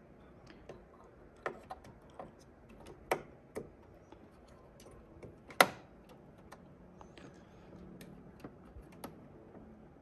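Scattered small clicks and taps as a RAM stick is handled and pressed into a desktop motherboard's memory slot, the loudest about five and a half seconds in. The module fails to seat on this try.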